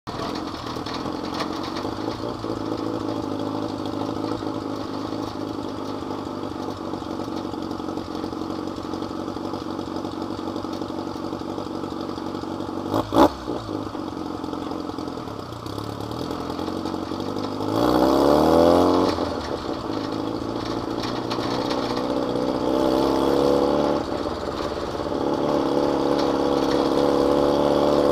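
Off-road buggy engine running steadily as it drives a dirt track, with one sharp knock about halfway through. Its pitch rises in a quick rev about two-thirds of the way in, and it runs louder near the end.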